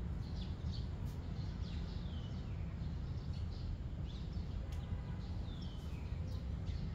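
Small birds chirping over and over, short high chirps that fall in pitch, over a steady low rumble of outdoor background noise.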